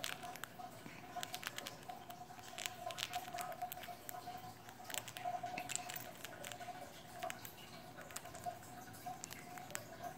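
A hamster gnawing and crunching a pretzel, a quick, irregular run of faint crisp clicks, over a steady faint hum.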